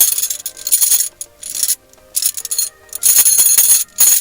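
Several bursts of metallic jingling, the longest about a second, from Foley props being shaken.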